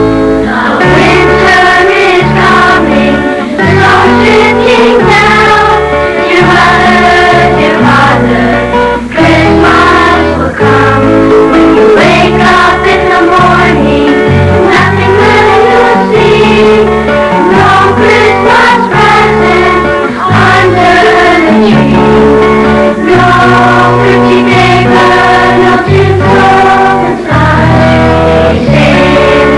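Children's school choir singing a Christmas song over a steady instrumental accompaniment with a rhythmic bass line.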